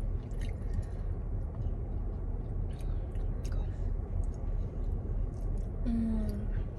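Close-up chewing and biting of saucy chicken wings, with small wet mouth clicks, over a steady low rumble inside a car. A short hummed "mm" comes about six seconds in.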